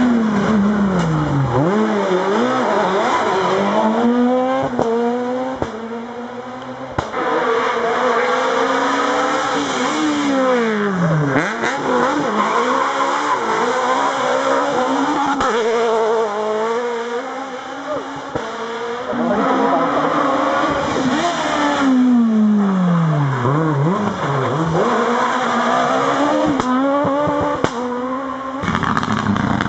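Rally cars on a tarmac stage passing one after another at racing speed, about three in turn. Each one's engine revs drop steeply as it brakes and then climb through the gears as it pulls away, with some tyre squeal.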